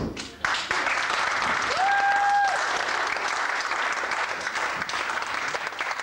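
Audience applauding in a hall, the clapping starting suddenly about half a second in and continuing steadily, with a short whistle from the crowd about two seconds in.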